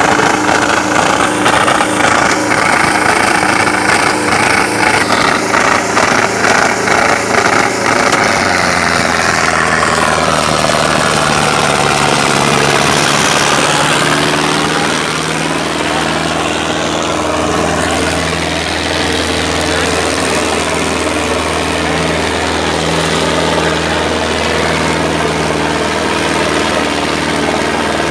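Ace tractor's diesel engine working hard, pulling two disc harrows through the soil. It is uneven and choppy at first, then about eight seconds in settles into a steady, low, labouring drone.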